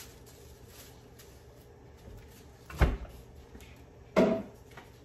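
Two short, dull knocks of wooden kitchen handling, about a second and a half apart, over a low steady room hum.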